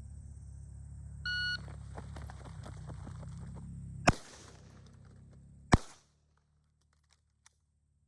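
An electronic shot timer beeps once, about a second in, over a low steady rumble. Two gunshots follow, about four and five and a half seconds in, roughly a second and a half apart.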